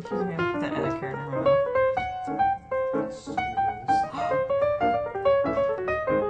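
Background piano music, a quick run of short notes.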